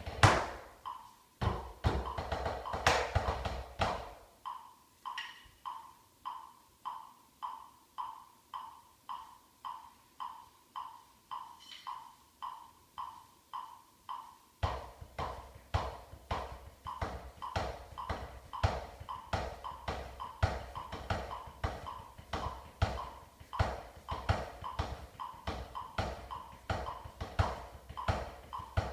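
Drumsticks playing a rudiment exercise on a drum practice pad, with a steady click about twice a second. For about four seconds the strokes come thick and fast, then stop for about ten seconds, leaving only the click, then start again in dense patterns over the click from about halfway through.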